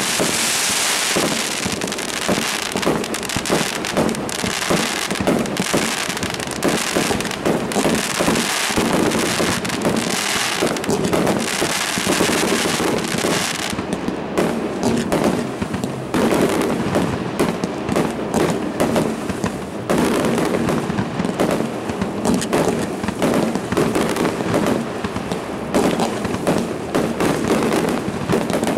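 Aerial fireworks going off in a continuous barrage: rapid, overlapping bangs of shells bursting, one after another with no pause.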